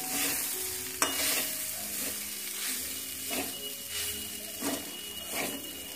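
Spatula stirring and scraping flattened rice (chira/poha) and vegetables in a metal kadai over a steady frying sizzle, a stroke about once a second, with a sharp clink about a second in.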